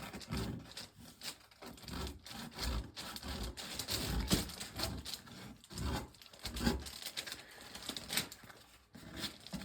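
Hand woodworking at the bench: irregular rubbing and scraping strokes on wood, with a few small knocks.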